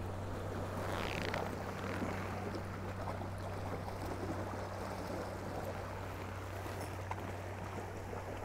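Steady low hum with a fainter overtone, under a wash of water and wind noise, at a waterside; a brief hiss rises about a second in.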